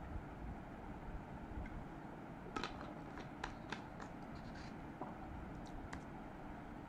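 Quiet room tone with a few faint clicks and soft knocks from objects being handled at a desk: a cluster between about two and a half and four seconds in, and one more near five seconds.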